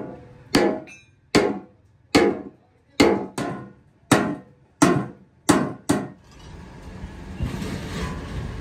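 Hand hammer striking the steel plate of a tractor front blade: about nine metallic blows, roughly one a second, each ringing briefly. The blows stop about six seconds in.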